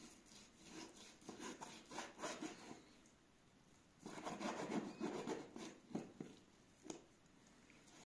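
A large knife sawing through raw beef and scraping on a plastic cutting board: bursts of back-and-forth slicing strokes, growing louder about four seconds in, followed by a couple of sharp taps of the blade on the board.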